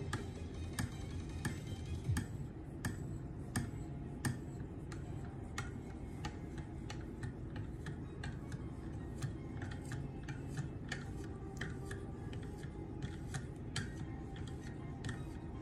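A 6 micron (3000 grit) stone on a KME guided sharpener being stroked along a knife edge, making light, irregular clicks about one or two a second.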